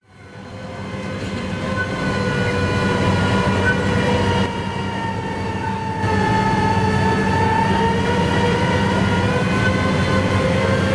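SANY SR150C rotary drilling rig running: a steady low engine drone under a high whine that sags slightly in pitch and comes back up. It fades in over the first couple of seconds and drops in level for a moment about halfway through.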